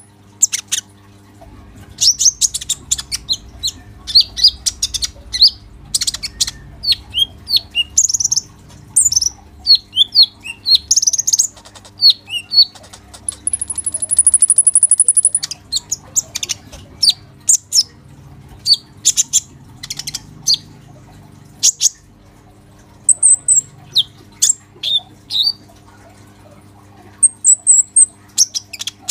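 Male sunbird (kolibri ninja) singing a rapid chattering song of sharp chirps and squeaky twitters, with one long, high, buzzy trill about halfway through and brief pauses near the end. A faint steady electrical hum sits underneath.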